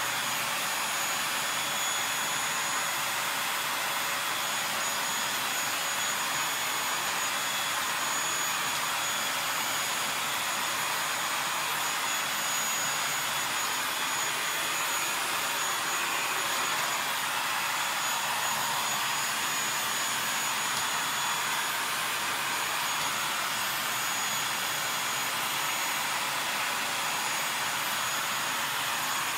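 Corded stick vacuum cleaner running steadily, a hiss of air with a thin high motor whine over it.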